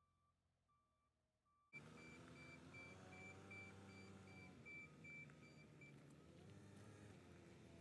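Trike nursery forklift running with its reversing alarm beeping, faint and slow for the first second and a half, then louder at about two and a half beeps a second over the steady engine. The beeping stops about six seconds in while the engine keeps running.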